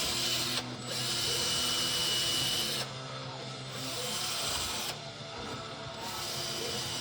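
A small handheld power tool running steadily, grinding against the work. The grinding is loudest in the first three seconds, then eases off and comes back more lightly.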